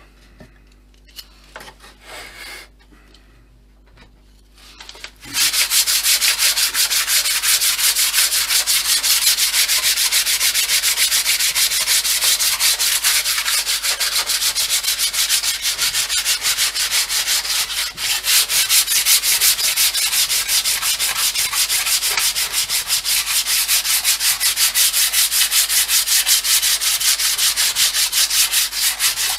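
Sandpaper rubbed by hand over the filled wooden nose of a model jet fuselage: rapid, steady back-and-forth sanding strokes that start about five seconds in, after a few faint handling sounds.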